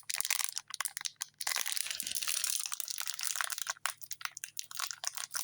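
Plastic wrapping crinkling and crackling as fingers pick and squeeze at the sealed wrapper of a toy capsule egg, trying to tear it open.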